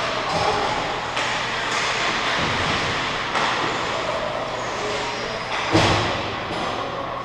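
Indoor ice-rink game ambience in a large echoing arena: a steady hiss with a low hum underneath and scattered knocks from play, with one sharp, loud knock about six seconds in.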